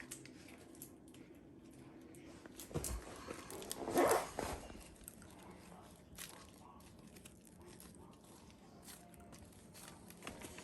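Slime and small plastic toy pieces being handled and dipped, with scattered soft clicks and a louder squish-and-rustle about four seconds in.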